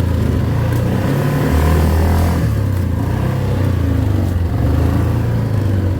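An off-road vehicle's engine running hard under throttle, revving up and down.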